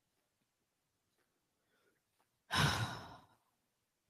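A single sigh: one breathy exhale about two and a half seconds in, lasting under a second and fading out, with near silence around it.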